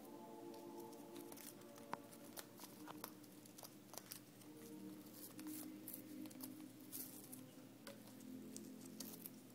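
Blue-fronted amazon parrot chewing and biting on a birdie bagel toy: faint, irregular clicks and crunches from its beak, over soft background music.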